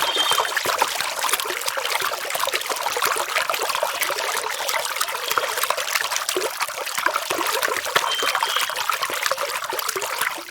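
Water trickling and splashing steadily, a dense patter of many small irregular splashes.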